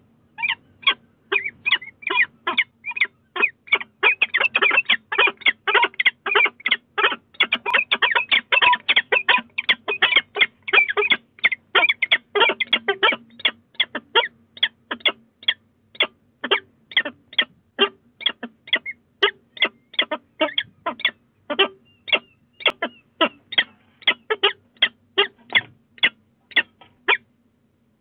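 A pair of peregrine falcons calling back and forth in a long run of short calls, about two or three a second. The calls are densest in the first half and stop shortly before the end.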